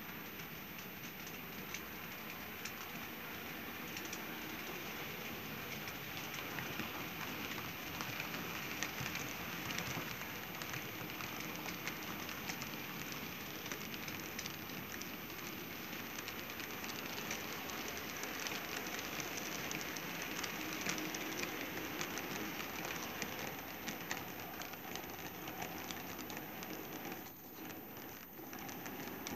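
HO-scale model trains running on the layout's track: a steady rattling rush of small wheels on rails, full of fine clicks, with a brief dip near the end.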